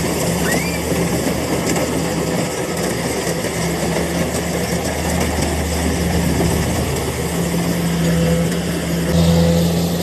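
Kubota rice combine harvester's diesel engine running steadily under load as the machine cuts and threshes rice, a constant low hum under a rushing mechanical noise. Its engine note shifts about nine seconds in.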